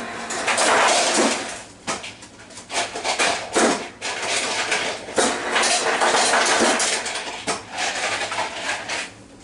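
Kitchen tap water running and ice rattling as a bowl of ice water is filled, in uneven rushes and clatters.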